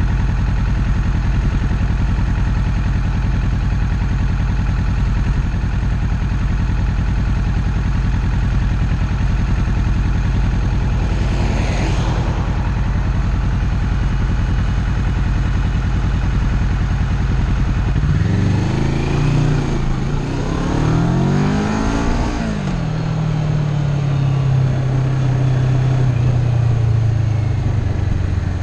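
Kawasaki Ninja 650's parallel-twin engine idling steadily, then revving up and shifting up through the gears about two-thirds of the way in as the bike pulls away, settling into a steady cruise.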